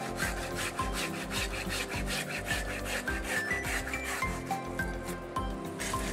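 Folding pruning saw cutting through a live banyan branch with rapid back-and-forth strokes, its teeth rasping in the wood.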